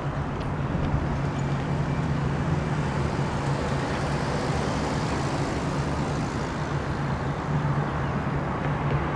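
Street traffic: a car drives past close by, over a steady low hum of engines.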